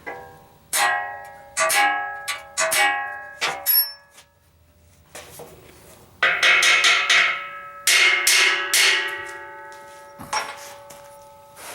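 Background music: plucked-string chords, guitar-like, struck in loose groups, each ringing and fading.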